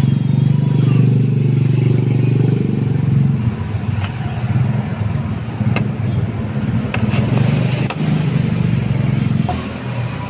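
Small motorcycle engine running steadily at idle, a little faster and louder for the first few seconds before settling, with a few light metallic clicks.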